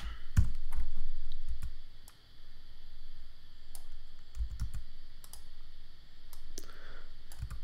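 Irregular clicks of a computer keyboard and mouse, a few at a time, over a faint steady hiss.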